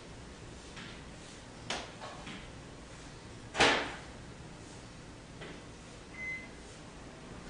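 A few light clicks and knocks, with one louder knock about three and a half seconds in, and a short high beep near the end.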